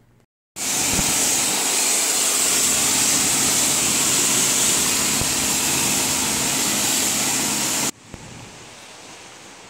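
Steady loud hiss of a self-serve car wash's high-pressure spray wand, with a faint pump hum under it. It cuts off abruptly near the end, leaving only a faint hiss.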